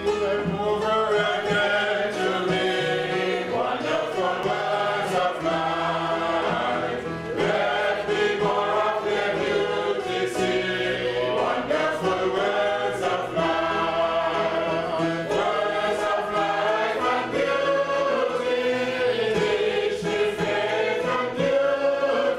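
Choir singing gospel music.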